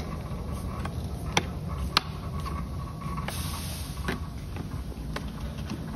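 Scissors snipping at the tear-off strip of a plastic pail's lid: sharp clicks of the blades on the plastic, about one a second, with a short rasp of plastic a little past halfway.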